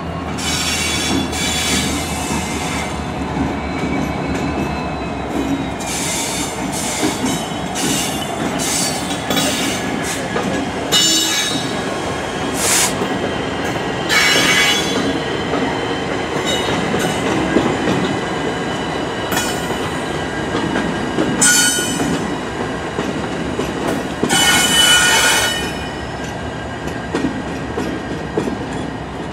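Union Pacific freight train rolling slowly through a rail yard, its wheels squealing on the curving track in repeated short high-pitched squeals over the steady rumble of the diesel locomotives and cars.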